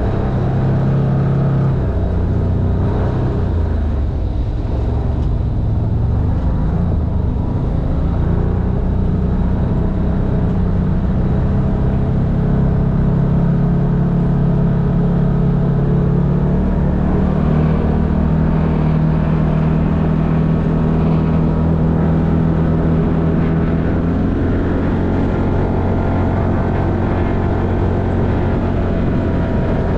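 Side-by-side UTV engine running steadily under way, heard from the driver's seat of the open cab. Its pitch rises somewhat in the middle stretch and drops back near the end as the speed changes.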